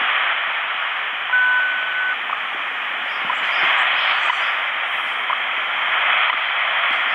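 Shortwave static hissing from the HanRongDa HDR-747 receiver's speaker, tuned to a standard time-signal station on 15 MHz. Faint second ticks come through about once a second, and a short steady beep sounds about a second in.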